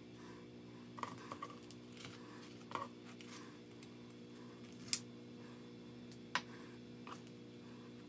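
A metal knife and spoon clinking and scraping against a nonstick frying pan while a cake is cut and a slice is lifted out: a handful of sharp clicks, the loudest about five seconds in. A steady low hum runs underneath.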